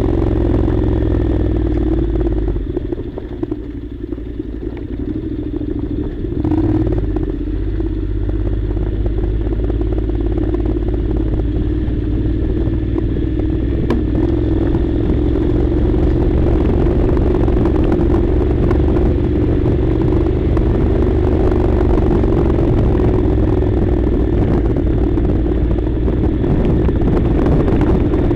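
Honda NC700's parallel-twin engine running under way, easing off for a few seconds early on, picking up again about six seconds in, then holding a steady pull.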